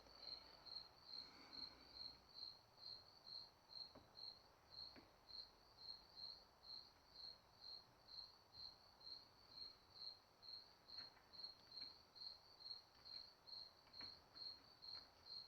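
A cricket chirping steadily at about three chirps a second, faint, with a few soft clicks of small parts being handled.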